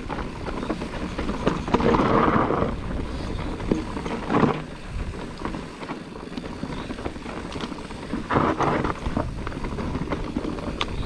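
Mountain bike riding down a dry, dusty dirt trail: tyres rolling and rattling over dirt and stones, with wind rushing on the microphone and a few louder surges of tyre and rattle noise.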